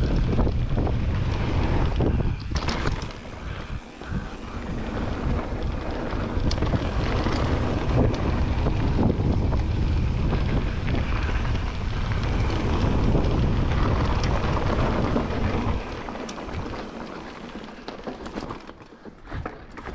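Wind buffeting a mountain-bike action camera's microphone as the bike rides fast down a dirt jump trail, with rumble and rattle from the tyres on the loose dirt. The noise drops briefly about three seconds in and fades over the last few seconds as the bike slows.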